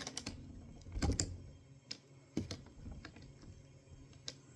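Irregular clicks and knocks from the AP900 PCP air rifle's action being worked and reloaded, the loudest cluster about a second in.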